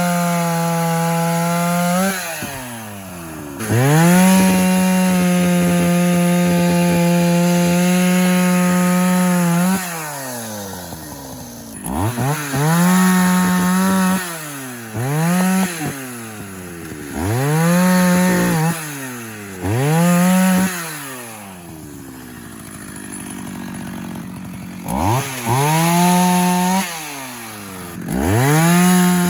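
Antique two-stroke chainsaw cutting into a large hickory trunk. It runs at full throttle in the cut, one long steady run of about six seconds, then a string of short bursts. Between bursts it drops back to idle and revs up again, with a longer idle near the end.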